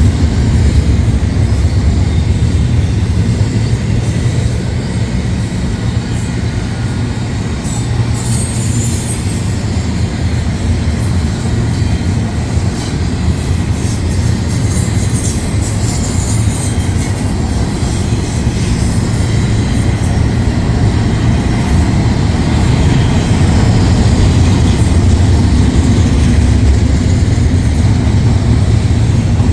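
Freight cars of a long mixed manifest train rolling past at close range: a steady, loud rumble of steel wheels on rail with clacking over the rail joints.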